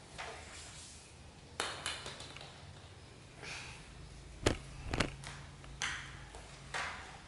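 A few scattered light taps and knocks, the loudest two about half a second apart near the middle, with soft rustling in between.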